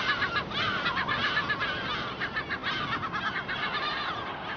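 A large flock of birds calling, with many short, shrill calls overlapping in a constant chatter that thins out a little in the second half.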